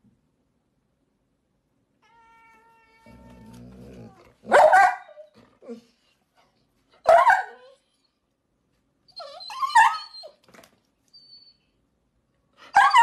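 A Labrador retriever giving four short barking calls, about two and a half seconds apart.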